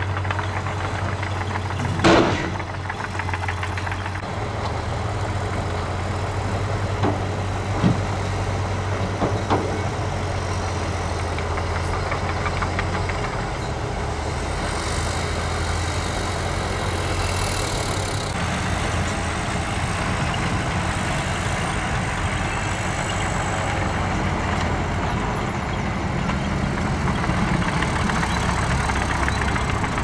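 Diesel dump truck engine running with a steady low hum, its note shifting about halfway through. A loud sharp clunk comes about two seconds in, with a few lighter knocks a few seconds later.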